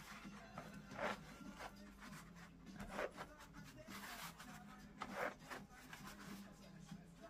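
Faint rubbing and rustling of a paper towel being handled against a painting board, a few short scrapes spaced a second or two apart, over a low steady hum.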